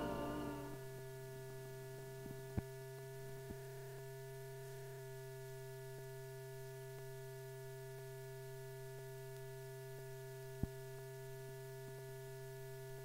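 Steady electrical mains hum with a few faint steady tones above it, on the soundtrack of an old film transfer running between commercials. Background music fades out in the first second, and two sharp clicks come about eight seconds apart.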